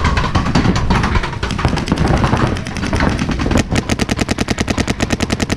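Paintball markers firing during a game: scattered shots over a noisy background. About two-thirds of the way in, one close marker fires a rapid, even string of shots, more than ten a second.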